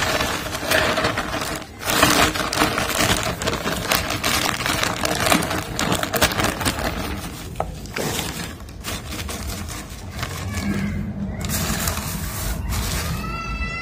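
Plastic compost bag crinkling and rustling as compost is tipped out and shaken onto a polythene liner, with the compost rustling as it falls. The crackling eases off after about eight seconds, and a short high-pitched cry comes near the end.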